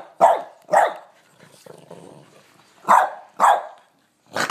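Boston Terrier puppy giving four short, sharp barks in two pairs, two right at the start and two about three seconds in, guarding its beef-tail chew from a reaching hand.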